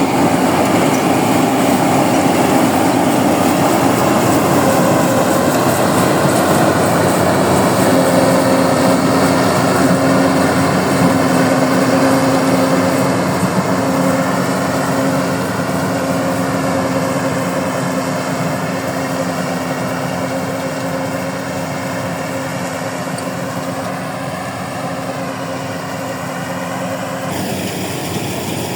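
Engine of a rice combine harvester running steadily at working speed, with a constant drone. It grows gradually quieter over the second half and changes abruptly shortly before the end.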